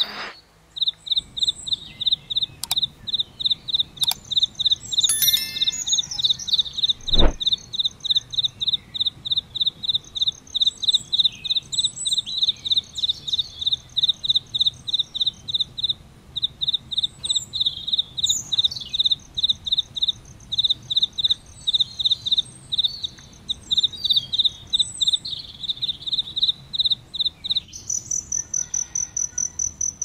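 Crickets chirping: a steady, regular run of short chirps, several a second, with a higher, fainter trill from another insect coming and going. Near the end the lower chirping stops and the higher trill carries on alone. A single sharp click about seven seconds in.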